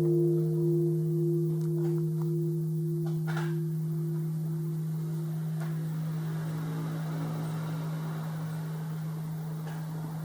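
Japanese temple bell (bonshō), struck by an automatic bell-ringing machine, ringing out after a strike. The higher overtones die away over the first few seconds while the deep low hum carries on steadily.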